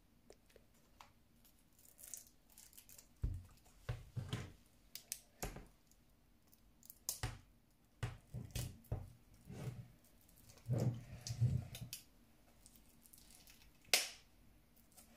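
Plastic shrink wrap on an album box being poked open with a pen and torn, giving irregular crinkles and crackles mixed with handling knocks against the box. There is a single sharp click near the end.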